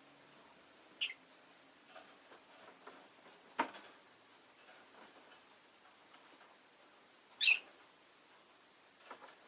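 Rosy-faced lovebirds giving two short, sharp, high chirps, one about a second in and a louder one near the end, with a single knock a few seconds in and faint scattered ticks between.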